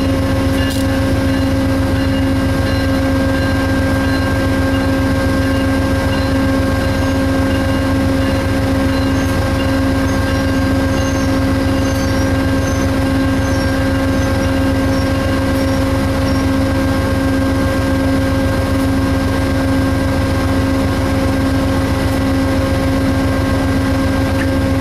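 Amtrak Amfleet passenger coaches rolling past close by: a steady, loud rumble of wheels on rail with a steady hum over it.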